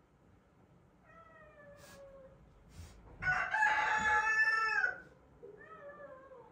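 A domestic animal calling three times: a faint call that falls in pitch, then a loud, long call, then another fainter falling call.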